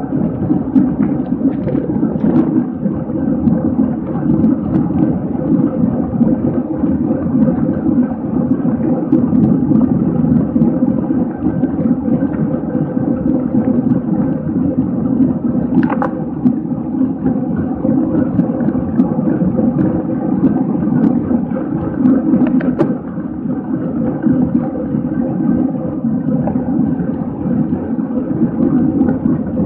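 Steady rush of wind buffeting the microphone, with road and tyre noise, from a camera riding on a bicycle at race speed. A couple of short sharp clicks cut through, about halfway and again some seconds later.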